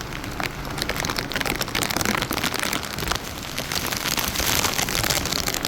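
Heavy hurricane rain pouring down and pattering on surfaces, a dense steady crackling hiss, with gusts of wind.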